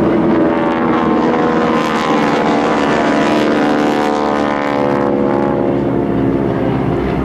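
Formation of North American SNJ Texans flying overhead, their nine-cylinder Pratt & Whitney R-1340 radial engines and propellers droning together. The drone is strongest in the middle, sinks slightly in pitch as the planes pass, and thins out near the end.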